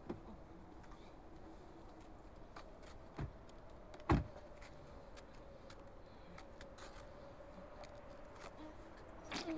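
Car door opening and a person climbing out of the car, with scattered small clicks and a sharp thud about four seconds in, over a faint steady hum.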